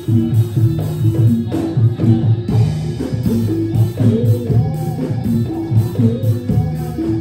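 Javanese gamelan dance music: a steady drum beat under repeating metallophone notes, with a wavering melody line above.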